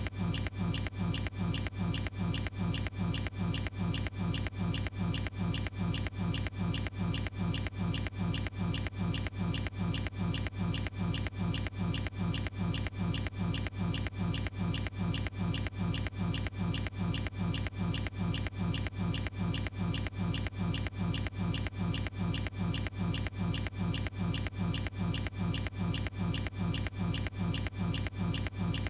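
A single sneeze recording looped back to back, repeating about three times a second, over a steady low hum.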